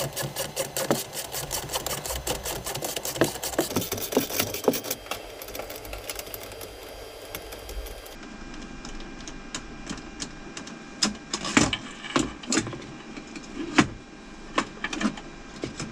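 Ratchet wrench clicking rapidly and evenly as it loosens the nut of the metal band clamp holding the aircraft's avionics extract fan to its lower duct. After a pause, a few separate clicks and taps of metal on the clamp.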